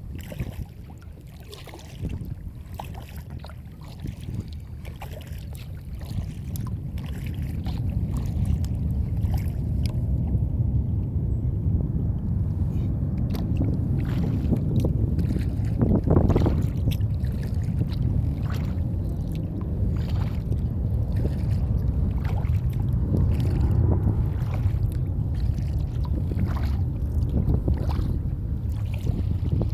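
Wind buffeting a kayak-mounted phone's microphone as a low rumble, which grows louder after the first several seconds. Small splashes and drips of water from kayak paddling come through over it.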